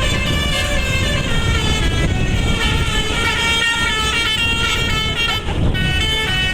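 A bus's telolet basuri multi-tone musical air horn playing a stepped melody over the low rumble of the vehicle. The tune breaks off briefly about five and a half seconds in, then carries on.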